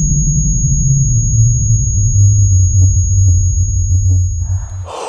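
Film sound design after a gunshot: a loud low drone slowly sinking in pitch, under a thin steady high-pitched ringing tone. Both cut off abruptly near the end.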